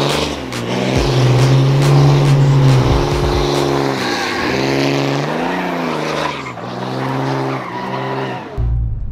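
Pickup truck doing a burnout: tyres spinning and squealing on pavement while the engine revs rise and fall over and over. Near the end the squeal cuts off suddenly and a lower, steadier engine rumble takes over.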